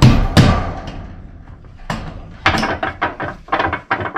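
Knocking and clatter from the building work: two loud knocks at the start, then a run of irregular lighter knocks and clicks from about two seconds in.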